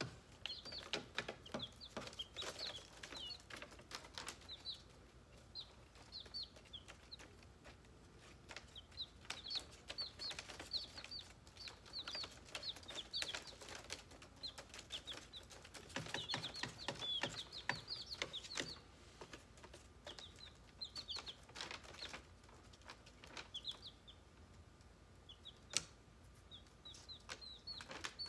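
Baby chicks peeping: many short, high chirps, often in quick runs, with light scratching and rustling of their feet on newspaper bedding, busiest about two-thirds of the way in.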